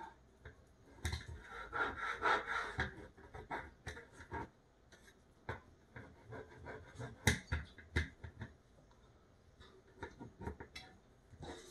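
Rustling with scattered sharp clicks and taps, from hands working a paper cutting template against a door.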